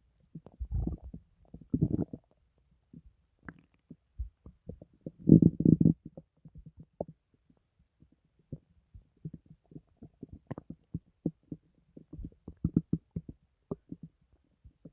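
Human stomach gurgling and rumbling: bursts of rapid bubbling pops, the loudest lasting under a second about five seconds in, with scattered single pops and shorter gurgles between.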